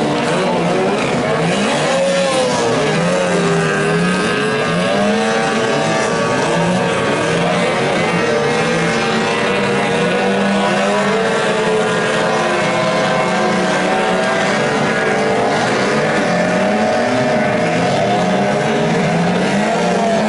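Several 15 hp outboard motors on small racing boats running at high revs, their pitches rising and falling and overlapping.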